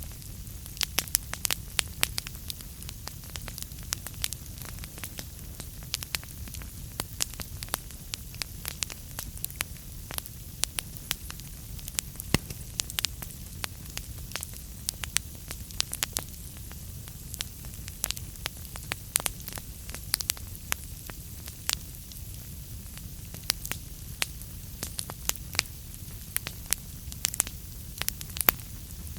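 Wood fire burning in a fireplace, with irregular sharp crackles and pops several times a second over a steady low rumble of the flames.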